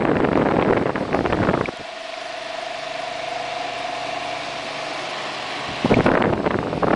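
Wagner A1452 desk fan running at its single speed. Loud rushing air from the blades hits the microphone, drops about two seconds in to a quieter steady hum with a faint held tone, and the rush returns near the end.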